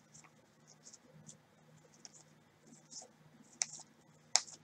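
Faint clicks and light scraping of glossy chromium trading cards being slid through a stack in gloved hands, a few soft ticks with the two sharpest near the end.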